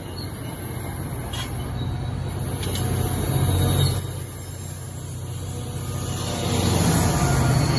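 Passenger train coaches rolling past at speed: a steady low rumble of wheels on rail with a couple of sharp clicks, growing louder near the end as the diesel locomotive pushing at the rear draws near.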